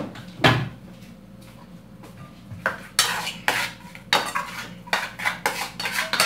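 A spoon clinking and scraping against a bowl as food is stirred and mixed with seasoning, in quick repeated strokes about two or three a second from about two and a half seconds in. Before that come two sharp knocks, the louder about half a second in.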